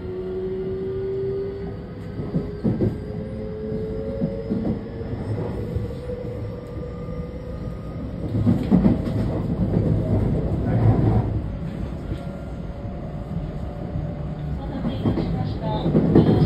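JR West 321 series electric train running, heard inside motor car KuMoHa 321-8: the Toyo Denki IGBT-VVVF inverter and traction motors whine in tones that rise slowly as the train gathers speed. Under the whine is a low running rumble with clacks of wheels over rail joints, and it grows louder in rough stretches partway through and near the end.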